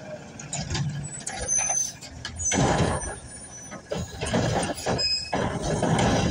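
Automated side-loader garbage truck emptying a trash cart: its engine and hydraulic lifting arm run while the cart is raised, tipped and set back down, with loud noisy surges and knocks about halfway through and again near the end.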